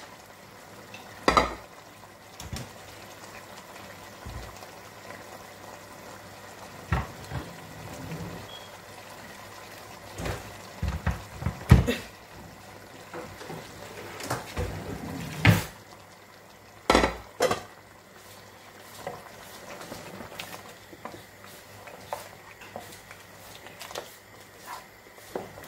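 Wooden spoon stirring a curry in an aluminium cooking pot, with scattered sharp knocks of the spoon against the pot, in clusters about halfway through, over a faint steady simmer.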